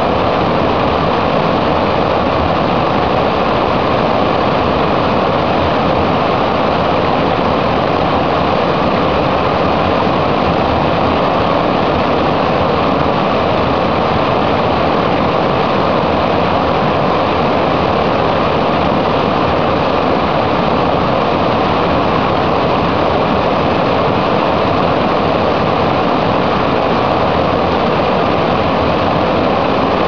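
Whitewater cascade tumbling over rocks close to the microphone: a loud, steady rush of churning water.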